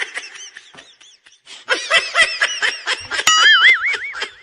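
Comedy meme sound effect of rapid, high-pitched giggling laughter in quick pulses. A wavering, whistle-like tone plays over it for about a second near the end.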